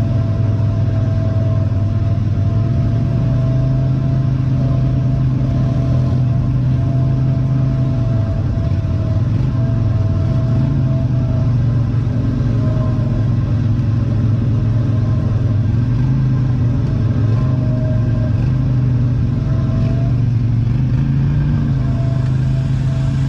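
Off-road vehicle engine running steadily at low revs, a continuous low drone with a thin whine above it.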